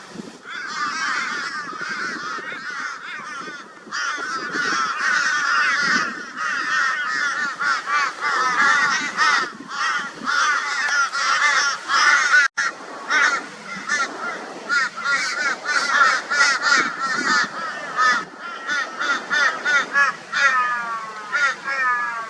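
A flock of crows giving loud, harsh caws over one another without a break: the raucous mobbing calls crows use against a barn owl. Near the end the calls run into a quick series of falling caws.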